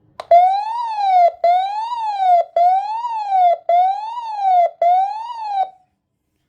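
Weather radio's electronic alert siren set off by its siren test: a tone sweeping up and down about once a second, five times over, then stopping suddenly.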